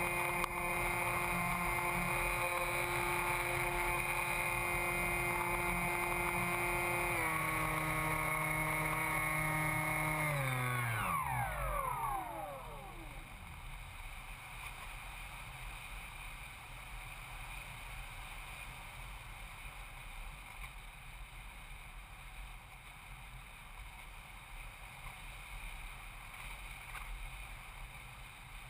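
Electric motor and propeller of an EasyStar RC glider, heard from a camera on the plane: a steady whine that steps down in pitch about seven seconds in, then winds down and stops at about twelve seconds. After that, wind rushes steadily past the airframe as it glides with the motor off.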